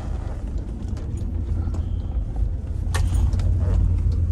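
A vehicle's engine running with a steady low rumble that grows louder about three seconds in, as the vehicle gets ready to back out of a washed-out track. A sharp knock comes at the same point.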